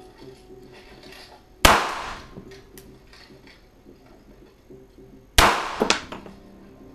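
Two pistol shots fired inside a room, about four seconds apart, each ringing on in the room after the crack. A couple of lighter clicks follow the second shot.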